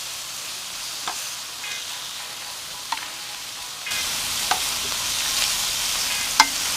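Meat sizzling in a frying pan, the sizzle growing louder about four seconds in, with a few light clicks of a utensil against the pan.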